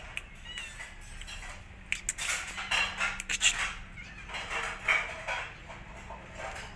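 A young kitten mewing briefly a few times, among louder scuffing and rustling noises.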